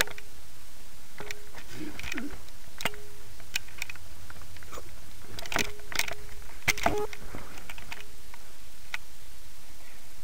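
Handling noise from a handheld camera being moved about in the dark: scattered clicks, knocks and rustles over a steady hiss.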